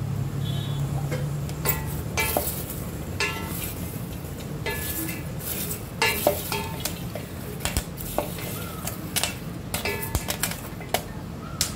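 Popcorn stirred with a wooden spatula in an aluminium pot: irregular knocks and scrapes against the pot, several with a short metallic ring.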